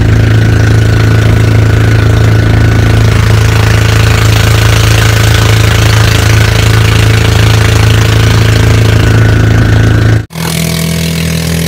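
Fishing boat's engine running loud and steady under way at sea. About ten seconds in, it cuts off abruptly and gives way to a quieter, higher engine drone.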